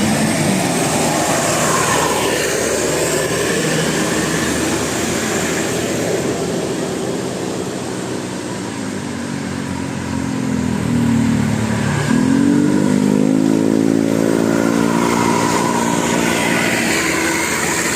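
A bus engine running past under load: its pitch sinks, then climbs steeply again about twelve seconds in, as after a gear change.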